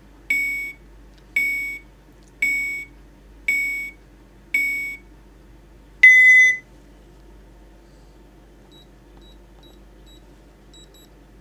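Blaupunkt Q3200 alarm system beeping its exit-delay countdown after being armed: five short beeps about a second apart, then one longer, louder beep about six seconds in. Near the end come a few faint, short, higher key-press beeps from the wireless keypad.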